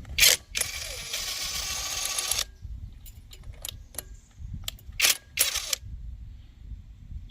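Handling noise: scattered clicks and rattles, with a short loud burst just after the start, a rushing noise for about two seconds, and two more loud bursts about five seconds in.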